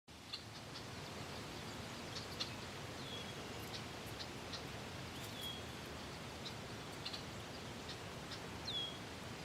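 Faint steady background hiss with scattered small ticks and three short high chirps, about a third, halfway and near the end.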